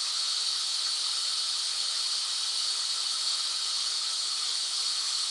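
Steady white-noise hiss, even and unchanging, brightest in the upper middle with little low end.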